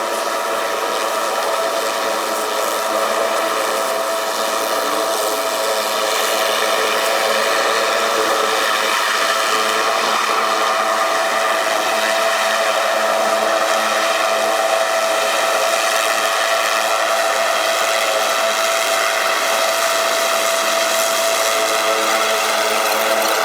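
A steady mechanical drone carrying several steady tones and a high whine, rising a little in level over the first few seconds and then holding even.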